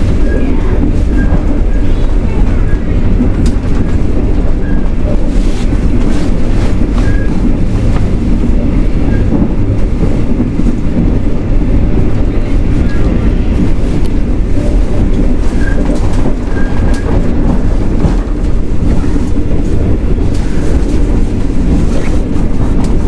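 Passenger sleeper train running along the track: a steady, loud rumble of the carriage with scattered clicks and faint squeaks from the wheels and car body.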